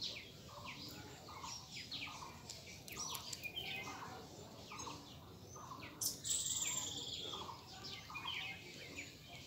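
Birds chirping: many short, high, overlapping chirps with a lower call repeating about twice a second. A louder, harsh, buzzy call starts about six seconds in and lasts about a second.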